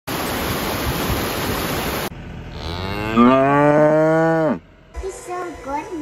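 Rushing stream water tumbling over rocks, then after a cut about two seconds in, a cow moos once: a single long call of about two seconds that rises, holds and falls away.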